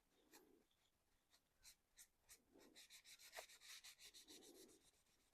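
Faint, irregular scratchy rubbing strokes of a small brush working paint over a 3D-printed plastic model body, busiest about three seconds in.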